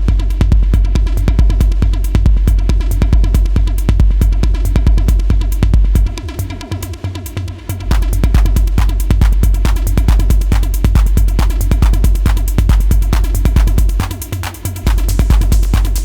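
Roland TR-8S drum machine playing a hard industrial techno pattern, a steady driving beat with a heavy kick and fast hi-hats. The kick drops out twice, about six seconds in for nearly two seconds and again near the end for about a second, then comes back in.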